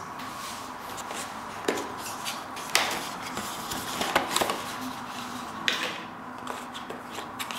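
Cardboard phone box and its inner paper packaging being handled: rustling with scattered light taps and knocks as the inner flap is lifted.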